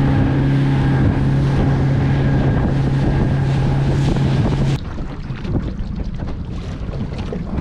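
Small boat's outboard motor running at a steady speed under way, with wind noise on the microphone. About two-thirds of the way through the motor sound cuts off abruptly, leaving wind and water noise.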